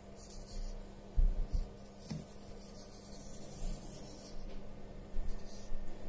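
Scraping, rubbing noises and a few low bumps from a hand-held phone being moved against the tank, over a steady low hum.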